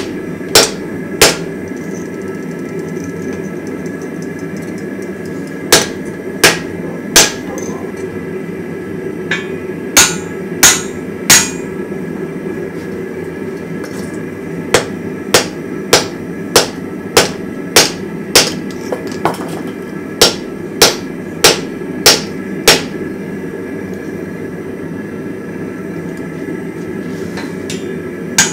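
Blacksmith's hand hammer striking red-hot steel on an anvil in short runs of blows: two, then three, then three, then a steady run of about a dozen at roughly one and a half blows a second. A louder clattering strike comes right at the end, over a steady rushing noise throughout.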